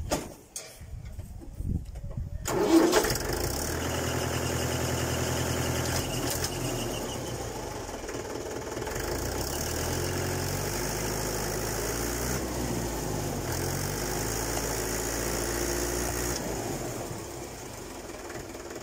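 Mahindra 475 DI tractor's four-cylinder diesel engine starting about two and a half seconds in, then running steadily. The level drops somewhat near the end.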